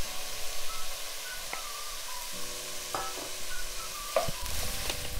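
Diced carrots, potatoes, onion and green peas sizzling in hot oil in a frying pan. They are stirred with a wooden spoon that knocks against the pan a few times.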